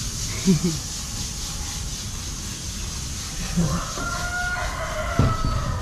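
Rooster crowing: a few short low notes early, then one long drawn-out call near the end.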